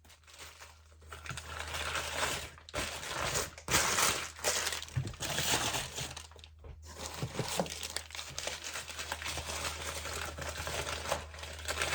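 Packaging crinkling and rustling in uneven bursts as crystal pieces are unwrapped from their bags, over a steady low hum.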